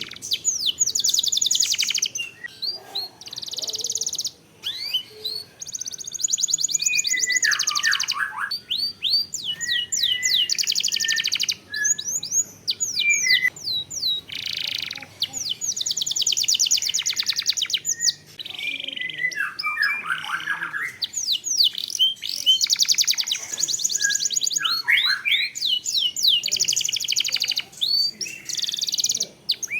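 Domestic canary singing continuously: long, rapid rolling trills alternate with runs of quick downward-sweeping whistled notes and lower falling notes.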